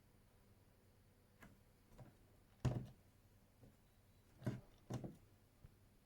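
A few short clicks and knocks of a hard plastic toy figure and its packaging being handled. The loudest comes about two and a half seconds in and two more come close together near the end.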